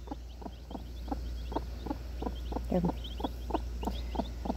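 Broody hen clucking to her chicks: a steady run of short, low clucks, about four a second, with faint high peeping from the young chicks.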